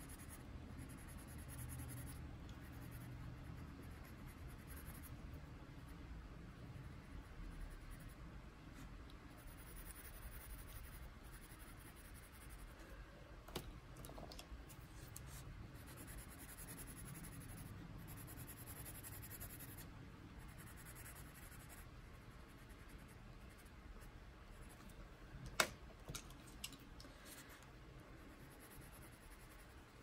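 Faint scratching of a Prismacolor colored pencil shading on paper, with a sharp click about halfway through and another, louder one near the end.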